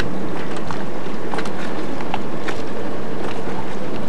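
Wind buffeting the camcorder microphone, a steady rushing noise, with a faint low hum underneath and a few scattered sharp ticks.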